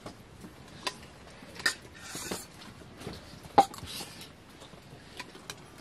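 Scattered clinks and taps of spoons and food on steel plates and bowls during a meal, a few seconds apart, the sharpest clink about three and a half seconds in.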